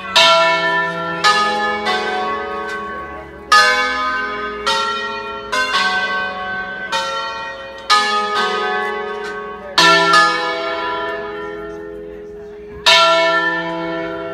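Five bronze church bells cast by De Poli in 1949, a ring tuned in sharp E, played in concerto by bell ringers: single strokes picking out a tune at an uneven pace, some close together and some a second or more apart. Each stroke rings on and overlaps the next, and the last one, near the end, is left to die away.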